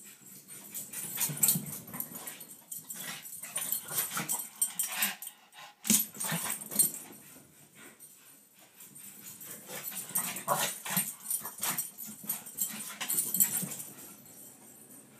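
Two Pekingese dogs playing chase: irregular bursts of scuffling and dog sounds, with quieter spells about eight seconds in and near the end.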